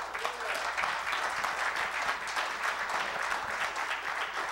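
Church congregation applauding: many hands clapping steadily together.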